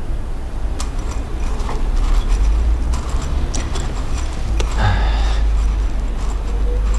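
A puppy eating kibble from a bowl: scattered clicks and crunches, with a denser clatter about five seconds in, over a steady low rumble.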